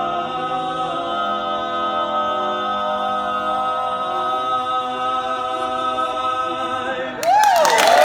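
Barbershop harmony singers holding the long final chord of the song a cappella, a steady stack of sustained notes. About seven seconds in the chord ends and applause breaks out, with a few whoops.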